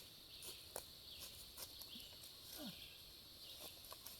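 Faint rural outdoor background: a steady high-pitched hum with a few soft clicks, and one short falling sound about two and a half seconds in.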